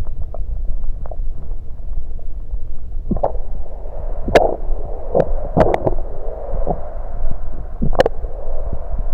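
Stomach gurgling after drinking soda, picked up close against the belly: a steady low rumble with a handful of sharp gurgles and pops from about three seconds in, as the fizzy drink moves through the stomach.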